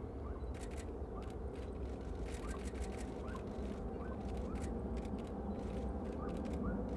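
Distant jet engine rumble of a Boeing 787-8 Dreamliner on its takeoff roll toward the listener, its Rolls-Royce Trent 1000 engines at takeoff power, growing slightly louder near the end. Faint short chirps and ticks are scattered over it.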